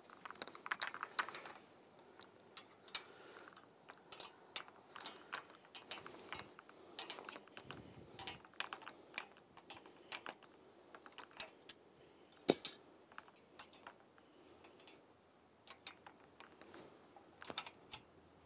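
Faint, scattered metal clicks and taps of a wrench and locking pliers on a steel pump rod as the next rod length is threaded onto the one held at the well, with one sharper clank about twelve seconds in.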